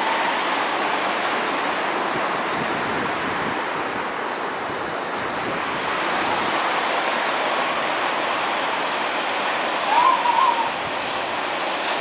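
Pacific surf washing steadily onto a rocky beach. About ten seconds in, a brief wavering call rises over it.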